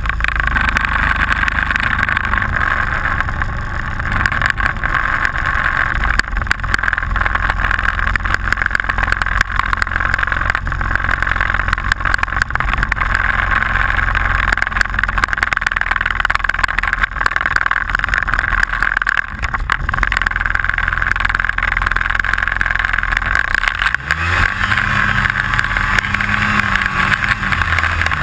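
Snowmobile engine running under way, with a constant rattle from the mount or machine whose cause the rider doesn't know. About 24 seconds in the engine revs up, holds higher for a few seconds, then eases off near the end.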